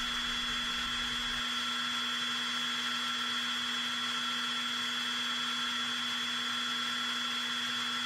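A steady machine whine: several fixed tones over an even hiss, unchanging throughout. A low rumble beneath it drops away about a second and a half in.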